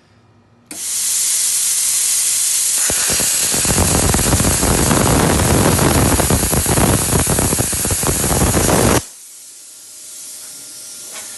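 HITBOX HBC5500 plasma cutter cutting through 1/2-inch square steel stock: a loud hiss of air starts abruptly under a second in, the arc strikes about two seconds later and cuts with a loud crackling rush for about six seconds, then stops suddenly, leaving a quieter air hiss.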